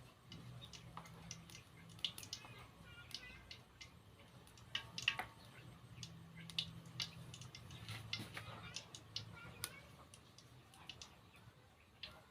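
Irregular light clicks and taps of kitchen utensils and dishes being handled, over a faint low hum that comes and goes.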